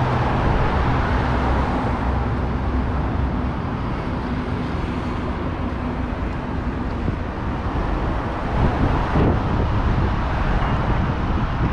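Road traffic noise: a steady rumble of passing vehicles, with an engine hum in the first few seconds that then fades into the general traffic.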